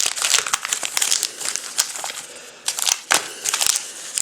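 Trading-card pack wrappers crinkling and crackling as the packs are handled, in quick, irregular bursts.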